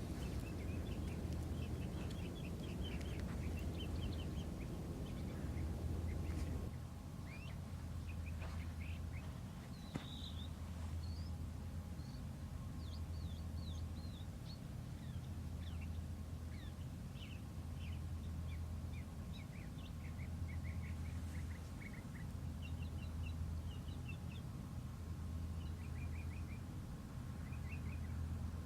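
Small birds chirping and twittering in short, scattered bursts, over a steady low rumble. A rush of low noise under the birds drops away about seven seconds in.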